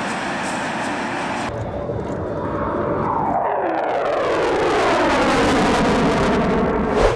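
Fighter jet engine noise, steady at first. After an abrupt change about a second and a half in, a jet passes with its pitch falling as it goes by, growing louder toward the end.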